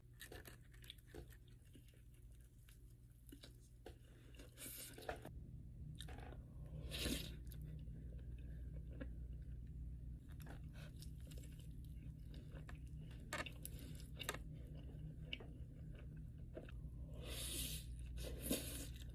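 A person chewing and crunching fried Wingstop food, with many small mouth clicks and a few louder crunchy bites, one about seven seconds in and more near the end, over a steady low hum.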